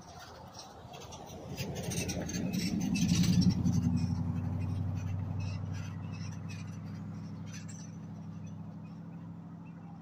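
Pickup truck driving past on the street, engine and tyre noise growing to its loudest about three and a half seconds in, then fading slowly as it moves away.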